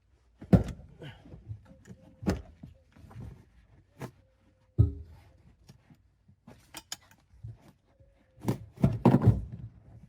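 A 2012 Toyota Prius rear seat bottom cushion being pulled up and wrestled free, giving a string of knocks, thuds and clicks. The heaviest cluster of thuds comes near the end.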